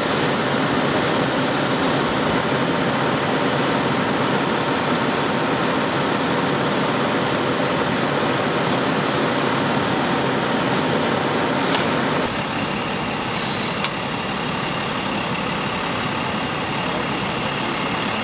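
Engine running steadily, with its sound changing abruptly about twelve seconds in.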